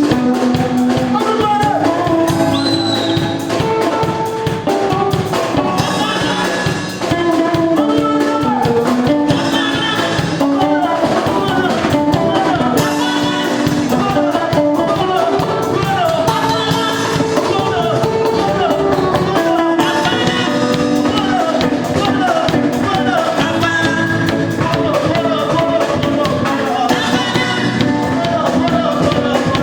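Live gospel band playing with a drum kit, with sung vocal lines over sustained keyboard-like chords.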